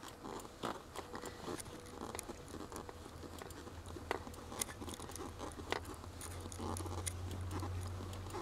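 Lada Granta clutch pedal being pressed and released, its return spring freshly lubricated with WD-40: no squeak, only light clicks and clacks from the pedal mechanism. A low steady hum comes in about six seconds in.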